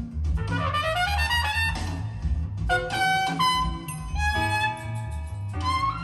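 Jazz with horns and a steady bass line playing through a pair of Monitor Audio Silver 100 6G two-way bookshelf speakers, heard in the room. A quick rising run of notes about a second in gives way to held horn notes.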